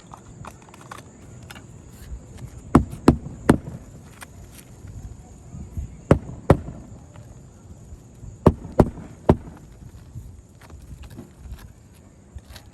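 Hammer strikes in three quick groups of two or three blows, a few seconds apart.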